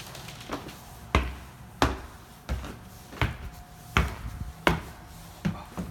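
Footsteps on hardwood stairs: a steady series of sharp steps, about three every two seconds.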